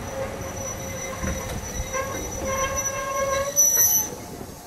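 Heritage steam train's wheels and brakes squealing as the carriages slow alongside a station platform. Several steady shrill tones sound over a low rumble, rise to a loud peak and then cut off about four seconds in.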